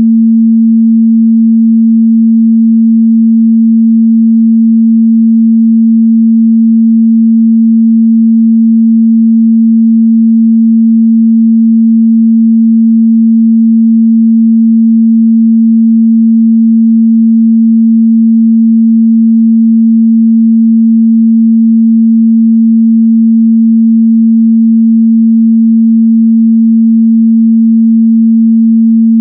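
A steady, loud 226 Hz sine-wave test tone, one pure low hum held at constant pitch and level.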